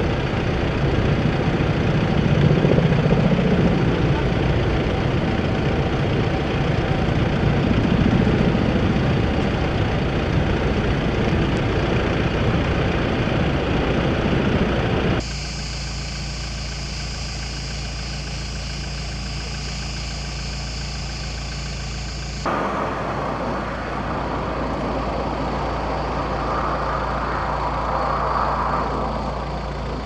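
Fire truck engine running, growing louder as the truck comes along the road toward the end. Before that there is a steady engine drone, and in the first half a loud rough rumble.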